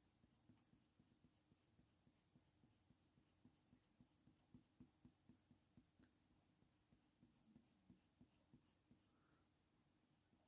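Very faint coloured-pencil shading: a Faber-Castell Polychromos pencil stroking lightly back and forth on hot-press watercolour paper in a quick, even rhythm of about three or four strokes a second.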